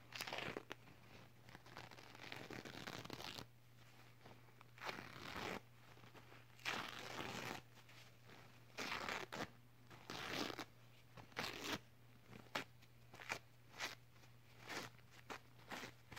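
A cleaning wipe rubbed and scrubbed against the camera lens right at the microphone, making close rustling, scraping strokes. It starts with long swishes, then comes in short separate rubs, and near the end the rubs are quick and brief.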